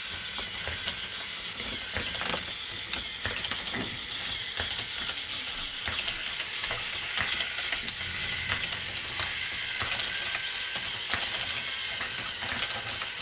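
K'nex ball machine running: a steady mechanical rattle with many sharp, irregular clicks of plastic balls and parts clattering.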